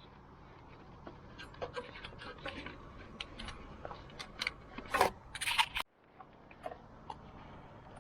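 Irregular clicks, light knocks and scrapes of small hard objects over a low steady hum, with a louder cluster of clicks about five seconds in.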